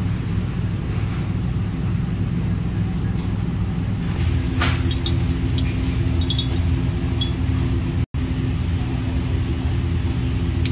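Steady low rumble with no clear source. A steady hum joins it about four seconds in, followed by a single light clink; the sound drops out for an instant about eight seconds in.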